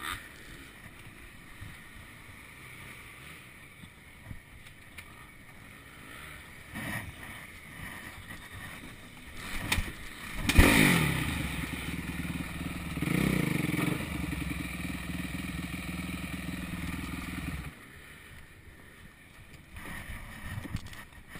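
A few light knocks and clicks, then a clatter about ten seconds in as an engine starts. It runs for about seven seconds, louder for a moment about three seconds after starting, then cuts off suddenly.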